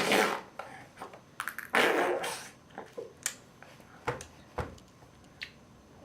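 A baby blowing wet, spluttering raspberries: one blown burst right at the start and a longer one about two seconds in, followed by a few short lip pops and clicks.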